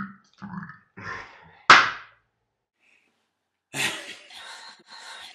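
A single sharp slap about two seconds in, followed after a pause of silence by two bursts of close hissing noise near the end.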